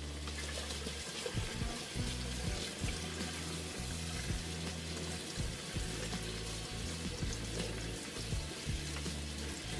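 Kitchen tap running steadily, the stream falling onto sliced chayote in a mesh strainer in a stainless steel sink, over background music.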